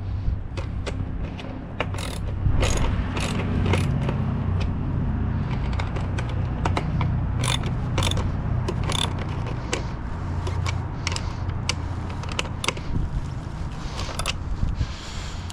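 Ratchet wrench clicking in irregular runs as bolts are turned, tightening a fairing bracket onto the motorcycle's fork, over a steady low hum.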